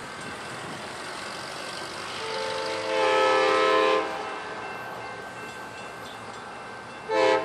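Amtrak P42DC locomotive's multi-tone air horn warning for the grade crossing: one long blast that swells up about two seconds in and cuts off, then a short blast near the end.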